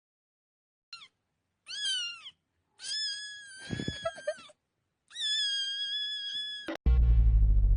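A cat meowing four times: a short chirp, a falling meow, then two long drawn-out meows. Loud music with a heavy bass cuts in near the end.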